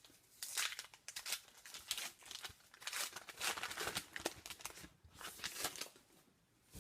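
Wrapper of a 2015-16 O-Pee-Chee hockey card pack crinkling and tearing as the pack is opened, in a series of quick rustles that stop about a second before the end.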